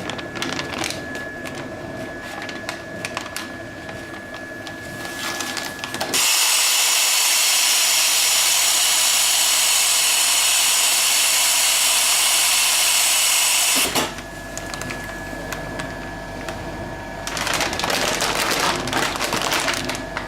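Continuous band sealer running with light clicking. About six seconds in, its gas-filling nozzle blows a loud, steady hiss for about eight seconds, with the filling time turned up, and cuts off sharply; a rustling follows near the end.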